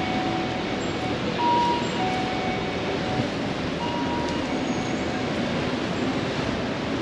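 Heavy rain falling on a city street and sidewalk: a steady hiss of rain mixed with traffic on the wet road.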